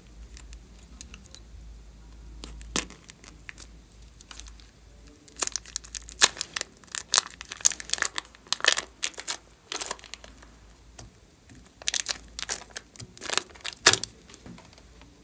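Thin plastic piping bag crinkling and tearing as it is peeled off soft blue clay, in runs of sharp crackles that come thickest from about five to ten seconds in and again shortly before the end.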